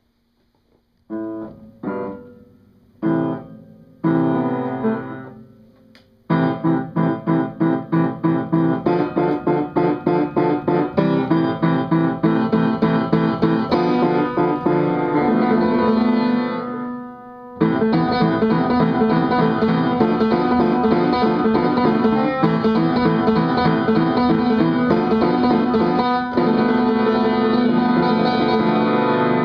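Solo piano playing an improvised tune. It opens with four separate chords struck about a second apart and left to ring, then settles into a steady pulse of quickly repeated chords, with one short break a little past halfway.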